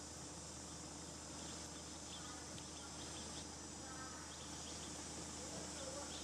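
Outdoor ambience: a steady haze of insect sound with scattered faint high chirps, and short faint calls about two and four seconds in.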